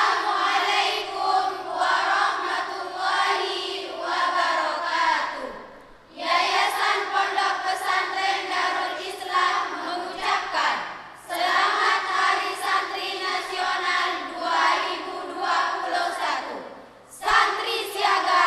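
A choir of Islamic boarding-school students singing together, in four sustained phrases with short breaks between them.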